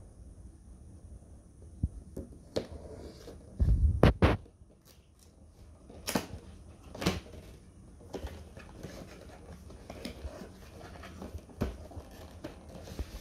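Cardboard retail box being handled and opened by hand: a few knocks and thumps against a wooden tabletop, the loudest cluster about four seconds in, with card rustling and scraping as the top flap is opened.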